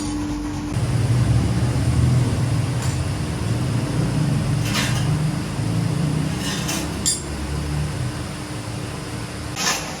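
A machine in a metalworking workshop runs with a steady low rumble, with a few sharp metallic clinks about every two seconds, the last and loudest near the end.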